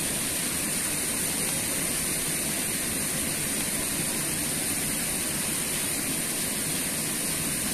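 Steady rush of flowing water in an irrigation channel, an even noise without breaks, with a thin steady high hiss above it.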